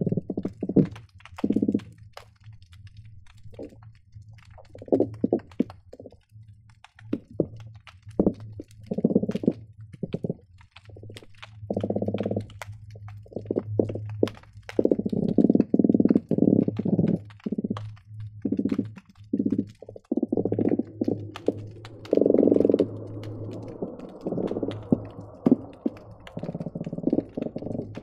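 Croakers calling underwater, picked up by hydrophones: many overlapping bursts of rapid low pulsing, each under a second to about two seconds long, growing busier about halfway through. Sharp clicks are scattered throughout, over a steady low hum.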